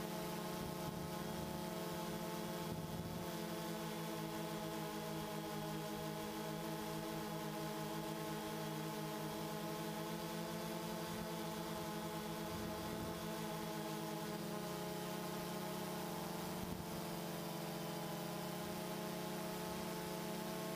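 DJI Phantom 2 quadcopter's motors and propellers humming steadily, heard from the GoPro camera on the drone itself. The pitch shifts slightly about fifteen seconds in.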